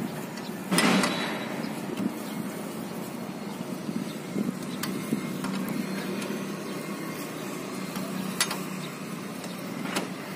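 A 17 mm socket turned by hand on a motorcycle's oil drain bolt, giving a few light metal clicks, over a steady low background hum. A brief loud noise burst comes about a second in.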